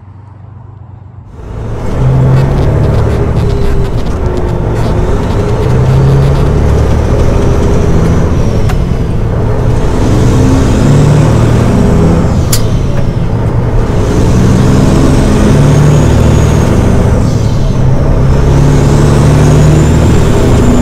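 Straight-piped Caterpillar 6NZ (3406E) inline-six diesel of a semi truck, loud from inside the cab, working through the gears as the truck drives, its pitch stepping up and down. It comes in after a quiet first second or so. A faint high whistle rises and falls a few times near the end.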